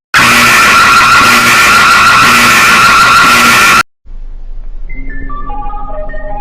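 Extremely loud, harsh, distorted emergency alert alarm: a noisy screech over steady high tones with a low pulse about once a second, cutting off abruptly after nearly four seconds. After a brief silence, a quieter electronic tune of short notes stepping up and down begins.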